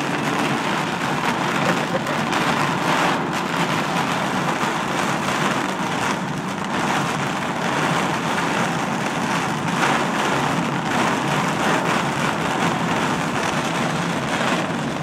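Heavy rain hitting a moving car's windshield and roof, heard from inside the cabin as a dense steady hiss, with road noise beneath.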